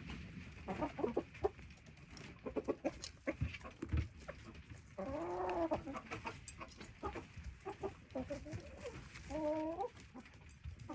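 Chickens clucking close up as they eat seed from a lap: many short clucks, with a longer drawn-out call about five seconds in and another near the end. A couple of soft thumps come about three to four seconds in.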